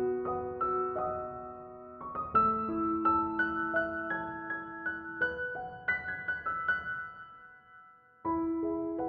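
Background music: gentle solo piano playing a slow melody of single notes and chords. The phrase dies away about eight seconds in and a new one begins.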